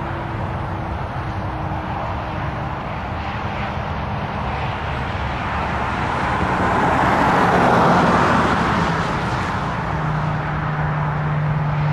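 Gulfstream business jet's twin jet engines running at taxi power as it rolls past, a steady jet rush that swells about eight seconds in and then eases, with a low steady hum coming in near the end.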